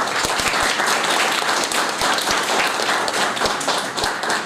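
Audience applauding, a dense steady clapping that dies down at the very end.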